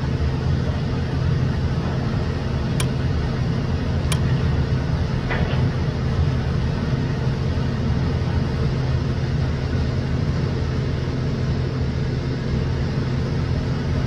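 Steady low engine or machinery drone with an even hum, no change in pitch. There are two faint clicks about three and four seconds in.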